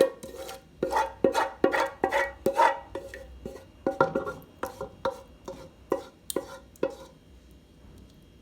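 Metal spoon knocking and scraping against a cooking pot while food is scooped and stirred, about two ringing strikes a second, stopping about seven seconds in.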